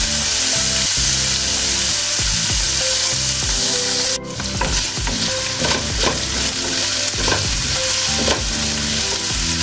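Diced pork sizzling as it pan-fries in a little oil, browning toward golden. The sizzle drops out for a moment about four seconds in. After that, a silicone spatula stirs and scrapes the pieces around the stone-coated pan.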